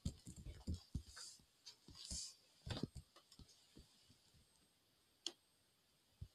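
Faint, short low thuds and knocks for the first three seconds, then a single sharp click about five seconds in, over quiet room hiss.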